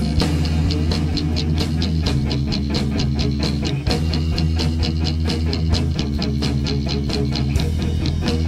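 Rock music with electric guitar over a fast, steady drum beat.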